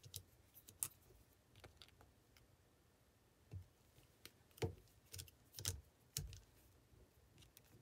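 Faint scattered clicks and small handling knocks of Southwire SNM1214HD combination wire strippers, their spring-loaded jaws opening and closing as copper wire is worked into a loop, with the louder clicks past the middle.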